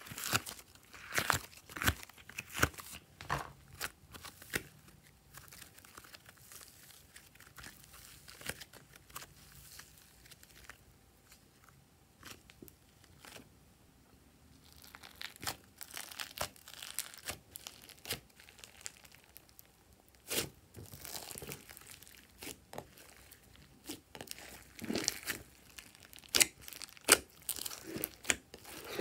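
Hands squishing soft modelling clay and stretching glossy slime: sticky crackling, popping and tearing sounds in irregular clusters, quieter through the middle and busiest near the end.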